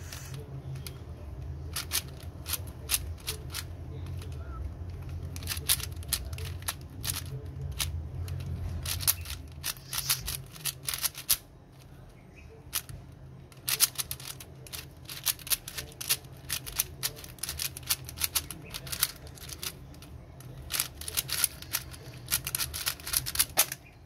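Plastic layers of a 4x4 speed cube clicking and clacking as they are turned in quick irregular bursts during a solve. Near the end, hands come down on the speed-cube timer to stop it.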